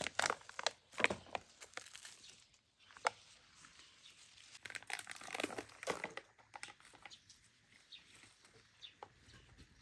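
Gloved hands scooping potting soil out of a plastic soil bag and pressing it into a plastic planter box: irregular rustling and crinkling of the bag with soft crunches and clicks, busiest in the first second and again around five seconds in.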